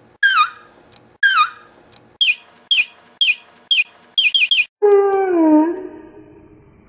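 High-pitched wailing cries, each one falling in pitch, repeated about once a second. About two seconds in they turn into quicker, shorter, higher cries. Near the end they give way to one long, lower falling wail that fades away.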